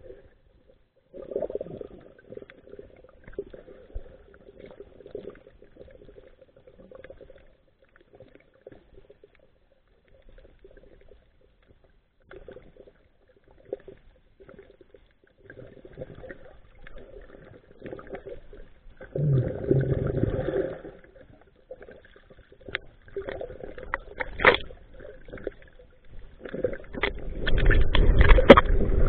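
Muffled underwater sound: scattered clicks and crackles over a faint hum, a brief louder rush about two-thirds of the way through, and a loud low rush of water near the end as the camera is swept quickly through the water.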